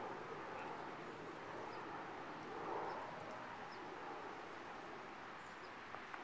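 Steady outdoor background ambience with a few faint, short bird chirps.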